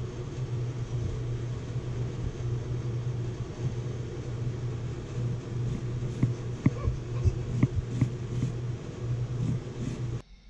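Kitchen knife slicing a peeled onion on a plastic cutting board, the blade tapping the board about eight times in the second half. Under the cuts, a steady low mechanical hum is the loudest sound.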